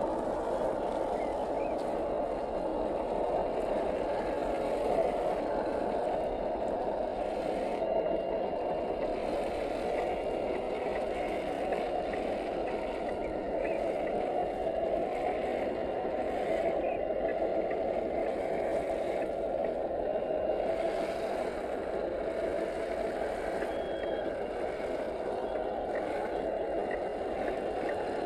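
1/10-scale HG-P411 RC crawler's 540-size electric motor and geared drivetrain whining steadily as the truck crawls through mud.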